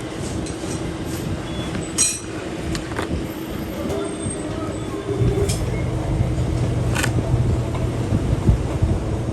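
Metal lathe running with a steady hum and low rumble, with a few sharp metal clinks; a heavier low drone comes in about five seconds in.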